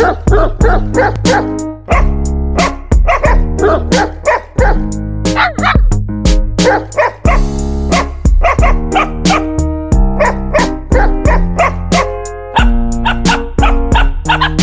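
Music with a steady beat, with short dog barks and yips heard through it.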